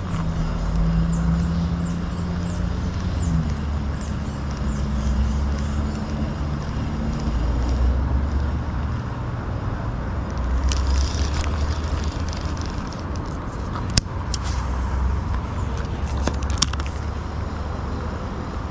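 Low rumble of a motor vehicle engine, its hum stepping up in pitch about three seconds in and fading out after a few seconds more. A sharp click comes about fourteen seconds in and another a couple of seconds later.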